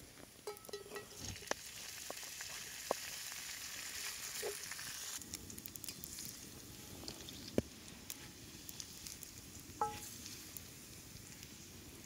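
Diced bacon sizzling as it fries in a cast iron skillet, with a few clicks and knocks of a wooden spatula against the pan. The sizzle cuts off about five seconds in, leaving quieter scraping and taps as the bacon and fat are poured and spooned out of the skillet.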